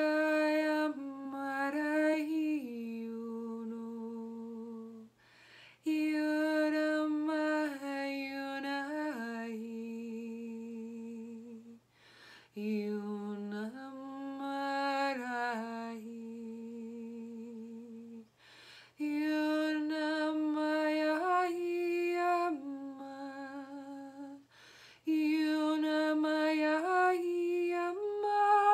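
A woman humming a wordless light-language toning with her lips closed. She holds long notes with a slight waver and steps between a few pitches, in five slow phrases separated by short breaths.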